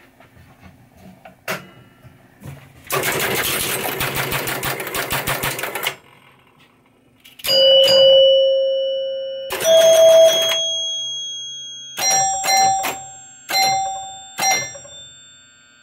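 A freshly rebuilt chime unit in a 1973 Williams electromechanical pinball machine. After a click and about three seconds of rapid mechanical clatter from the machine, the chimes are struck seven or so times. Each strike rings out at one of three pitches and dies away.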